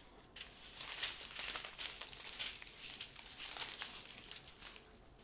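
Strips of small clear plastic bags of round diamond-painting drills crinkling and rustling as they are handled and laid out, in irregular bursts.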